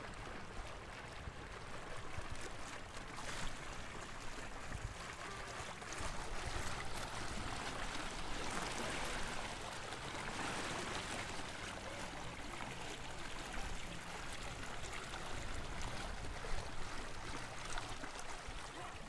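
Water rushing and splashing along the hull of a small electric boat under way on a canal, its bow wash swelling louder around the middle.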